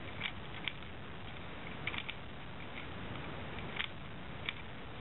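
A long screwdriver unscrewing the stock screw down inside an airsoft M4's buffer tube: a few scattered small clicks and ticks over a steady background hiss.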